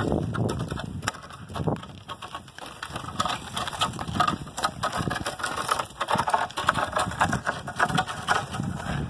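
Long sawn wooden planks lashed to a pack mule's saddle, their lower ends dragging and scraping over a gravel road as a continuous rough crackling, with the mule's hooves crunching on the gravel.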